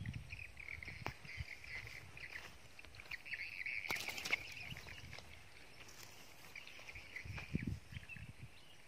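Steady high chirping from small wild animals in the background, with a few light clicks and a short rustle about four seconds in as a small fish is handled and unhooked.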